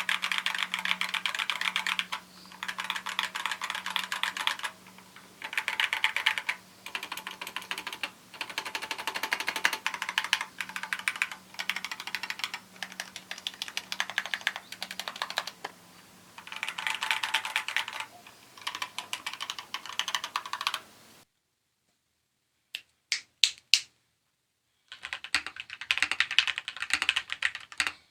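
Typing on an Akko ACR59 mechanical keyboard with lubed switches, band-aid-modded stabilizers, a tape mod and a PE foam case mod. Fast runs of keystrokes come with short pauses between them. After a few seconds of silence broken by a few single key presses, typing resumes near the end.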